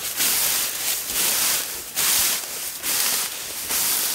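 Tall grass swishing and rustling close to the microphone as someone pushes and walks through it, in repeated strokes roughly one or two a second.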